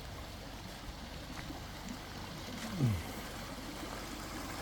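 A rain-swollen creek flowing steadily, with one short sound falling in pitch about three seconds in.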